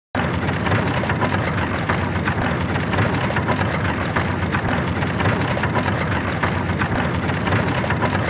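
Ewok wooden catapult rolling: a steady, dense rumble of wheels with fine clattering throughout, starting suddenly just after the start.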